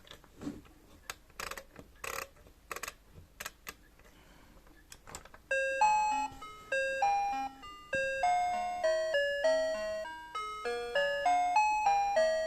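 A few sharp clicks, then about five and a half seconds in a Citizen melody alarm clock starts its alarm tune: an electronic melody of short chiming notes that each fade quickly.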